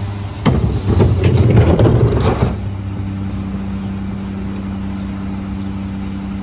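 Mack LR McNeilus rear-loader garbage truck working: a loud clattering and crunching with sharp knocks for about two and a half seconds, then it settles to a steady humming run.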